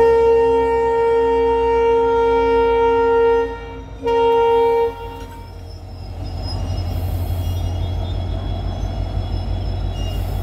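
Locomotive horn sounding for departure: one long blast of about three and a half seconds, then a short second blast. After that comes a steady low rumble of the train.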